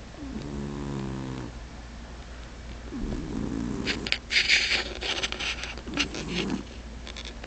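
Domestic cat snoring in its sleep. A buzzy, pitched snore comes near the start and rougher snores follow a few seconds later. In the middle come loud bursts of hissy noise.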